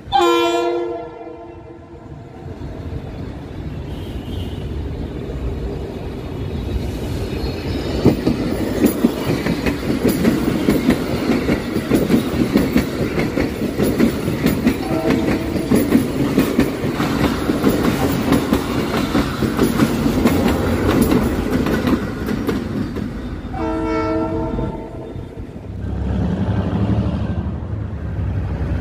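Passenger train on the Abu Qir line sounding its horn as it approaches, then passing close by with loud, rhythmic wheel clatter on the rails. The horn sounds briefly in the middle of the pass and again, longer, near the end. In the last few seconds a low, steady engine rumble takes over.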